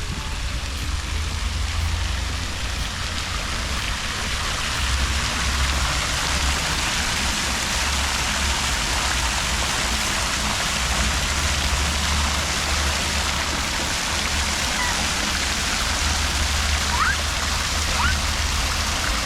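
Fountain running: a steady rush of splashing water, with a low rumble underneath and two or three faint short rising chirps near the end.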